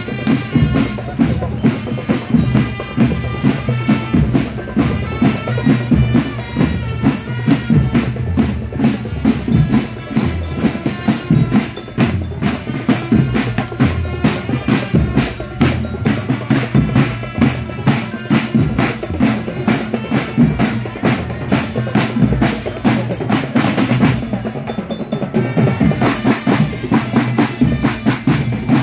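A marching drum band playing: snare and bass drums beating a fast, steady rhythm, with some high pitched notes in the first few seconds.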